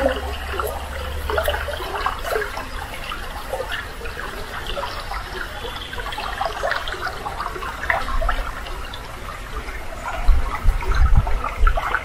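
Shallow, clear spring-fed stream flowing and gurgling over its stony bed, a steady babble of small trickles. A few low thuds near the end.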